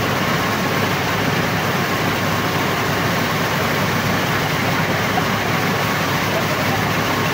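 Borewell drilling rig running: a loud, steady mechanical noise that holds even throughout.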